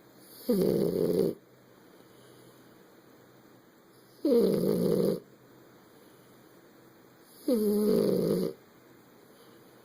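French bulldog snoring: three snores, each about a second long and coming about three and a half seconds apart, each starting with a dip in pitch.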